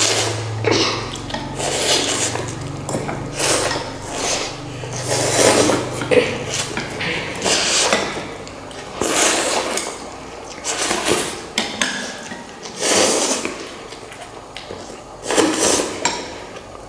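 Instant noodles being eaten fast: repeated noisy slurps every second or two, with chopsticks and spoons clattering against bowls.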